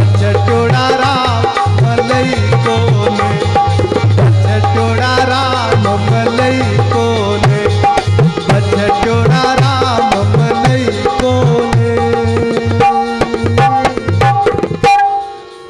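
Instrumental bhajan music: tabla drumming a quick rhythm under held melody notes. The music breaks off near the end.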